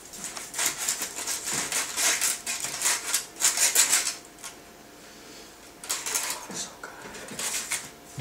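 A knife sawing through a burrito in aluminium foil, the blade scraping and the foil crinkling in quick repeated strokes. The strokes come in two spells, with a lull of about two seconds between.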